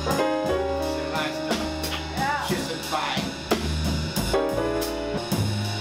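Live jazz combo playing: drum kit keeping time on cymbals and drums, upright double bass playing low notes, and piano chords, with a melody line bending in pitch over them.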